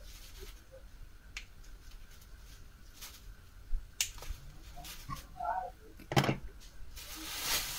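Scattered faint clicks and taps from small parts and tools being handled at a workbench, with a short hiss near the end.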